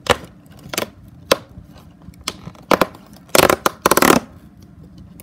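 Fingers tapping and picking at a perforated cardboard advent calendar door, making a few sharp clicks. About three and a half seconds in, the card tears open in two short rips.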